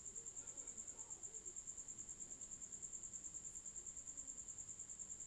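A cricket trilling faintly in the background: one steady high-pitched note pulsing rapidly, many pulses a second.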